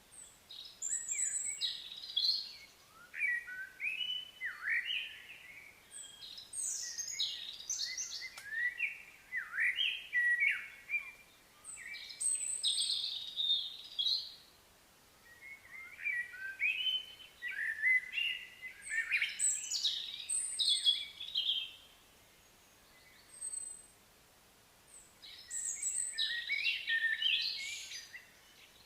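Birds singing: bursts of quick, varied chirps and whistles lasting a few seconds each, with short pauses between them.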